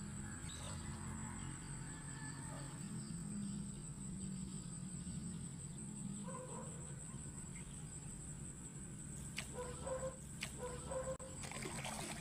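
Quiet outdoor ambience: a steady high-pitched insect drone over a low hum, with a few short chirping calls about nine to eleven seconds in.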